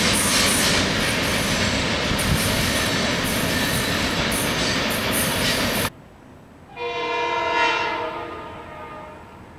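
A freight train's boxcars rolling past with a steady loud rumble and wheel noise, which cuts off abruptly about six seconds in. Then a Metro-North M8 train's horn sounds once from down the line, a chord that swells and fades away over about two seconds.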